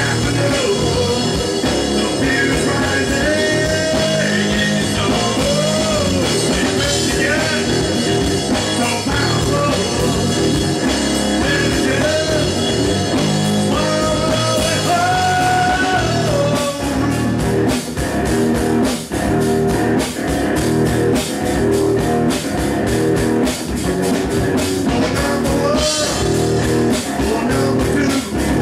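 Live punk rock band playing loudly: distorted electric guitar, bass and drum kit under a male lead vocal. The singing stands out in the first half; from about halfway on the drum hits come through more sharply.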